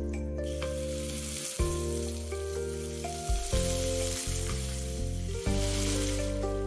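Raw chicken pieces sizzling loudly in hot oil as they go into the pot to sear; the sizzle starts about half a second in and eases near the end. Background music plays throughout.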